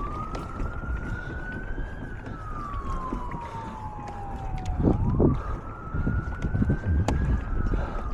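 Distant emergency vehicle siren wailing in slow rising and falling sweeps, about two cycles, over wind noise on the microphone.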